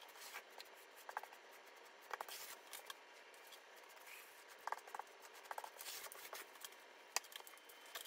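Grout float scraping sanded grout across penny tile, heard faintly as short, scattered scrapes and clicks.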